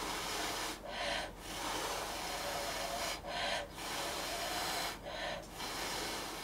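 A person breathing close to the microphone. There is a run of noisy breaths with short pauses about every two seconds.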